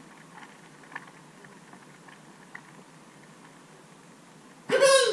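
Quiet room tone with a few faint ticks, then near the end a short, loud high-pitched sound whose pitch rises and falls.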